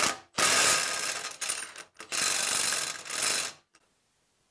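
Milwaukee M18 mid-range impact wrench hammering as it loosens a nut on a bolt. There is a brief blip, then two bursts of about a second and a half each, and the hammering stops a little before the end.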